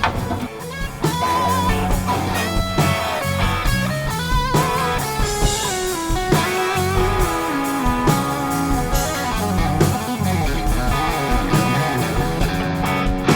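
Instrumental blues-rock: an electric lead guitar plays a melody with bent and wavering notes over bass and drums.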